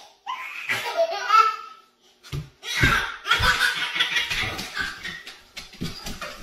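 Laughter in repeated bursts, with a short break a little before the middle.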